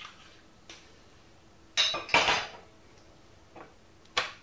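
Frying pan knocking and clattering on a glass-ceramic induction hob as it is tilted to spread the olive oil: a handful of sharp knocks with short ringing tails, the loudest pair close together in the middle.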